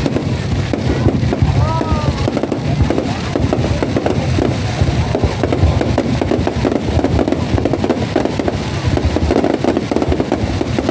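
Fireworks display in a dense, continuous barrage of bangs and crackles with no let-up, with a few short whistling tones about two seconds in.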